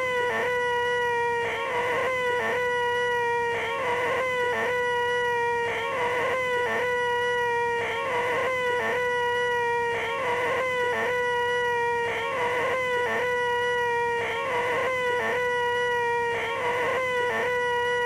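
A man's high-pitched, held 'eeeeh' screech, the 'most annoying sound in the world', looped over and over. Each screech holds one pitch for about two seconds before a short break.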